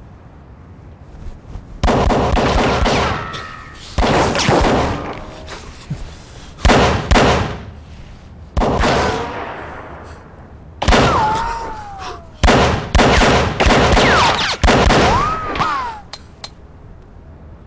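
Pistol shots in an exchange of fire, about nine over the stretch and one to two seconds apart. Each is a sudden bang with a long fading tail. Two whistling tones sweep down in pitch, one in the middle and one near the end.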